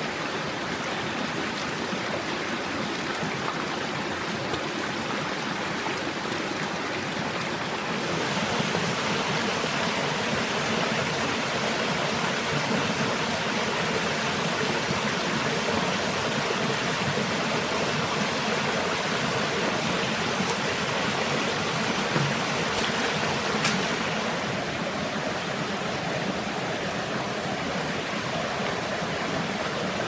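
A shallow forest stream running over rocks: a steady rushing hiss that gets a little louder about eight seconds in and eases off again near the end.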